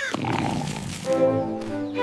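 Cartoon background music. A brief rising squeak sounds right at the start, and sustained chords come in about a second in.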